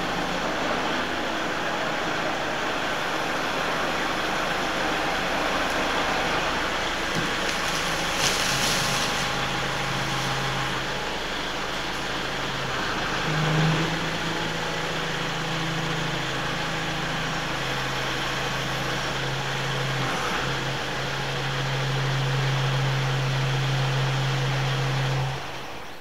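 Kubota L4701 tractor's diesel engine running while working the front loader, its note stepping up and down as the bucket is raised, tipped to dump a load of corn ears and lowered. A short hiss sounds about eight seconds in.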